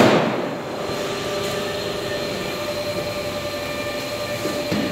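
Beam 5R moving-head light running, with a steady mechanical hum and whine from its fans and motors. A sudden loud sound at the start falls in pitch, and a shorter one comes near the end, as the motors shift the colour and gobo wheels during calibration.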